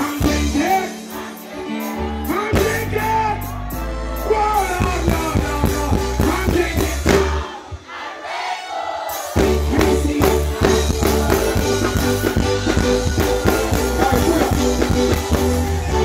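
Live dancehall music through a stage sound system: a vocalist sings over a heavy bass riddim. About halfway through, the bass drops out for a couple of seconds, then the riddim comes back in.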